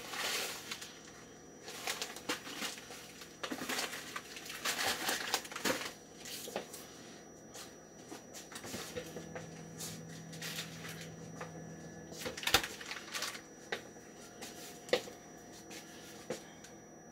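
Crinkling and tearing of a plastic stuffing-mix pouch being handled and opened, in irregular rustles. Scattered kitchen clicks and clatters follow, with one sharp knock in the second half the loudest sound.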